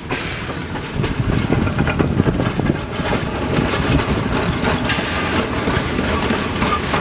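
South Australian Railways T class 4-8-0 steam locomotive No. 251 and its passenger carriages passing close by, a loud continuous rumble with a dense, irregular clatter of wheels and running gear on the rails.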